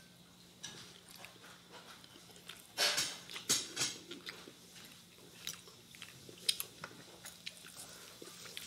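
Close-up eating sounds from a whole roast chicken: chewing and mouth clicks, with crackles as the crispy skin is handled, and a louder burst about three seconds in. A faint steady hum runs underneath.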